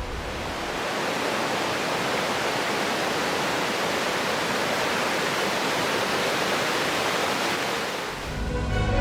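Waterfall rushing: a steady, even roar of falling water that fades out about eight seconds in.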